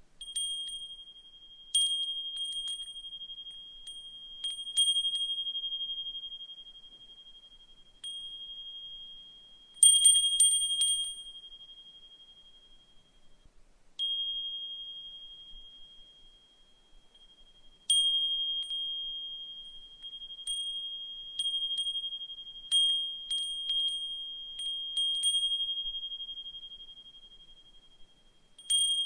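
Brass suzumushi furin (Japanese wind chime) ringing one high, clear note, its clapper striking at irregular intervals so that each ring slowly fades before the next. It gives a quick flurry of strikes about ten seconds in, and more frequent tinkling through the second half.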